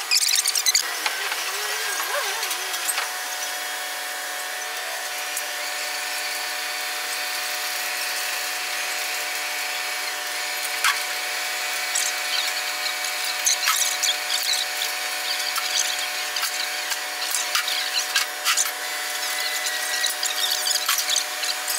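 Steady machinery hum from construction-site equipment, with a short wavering whine near the start and scattered sharp metallic clicks and clanks as workers rig a precast concrete segment to a gantry's lifting frame.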